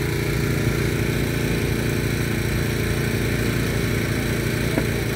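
Small engine running steadily at one constant speed.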